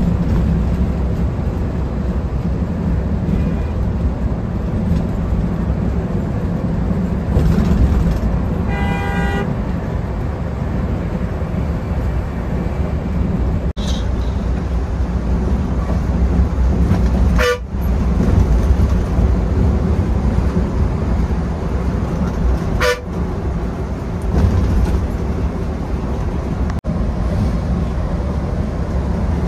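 Steady low rumble of a bus's engine and road noise while under way, with a vehicle horn sounding once for about a second roughly nine seconds in.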